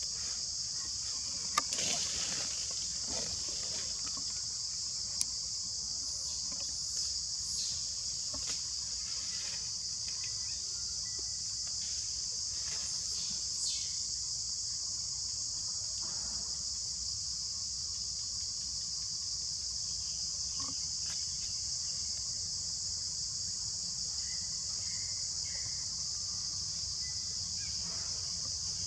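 Steady, high-pitched insect chorus buzzing without a break, with a few faint clicks and rustles.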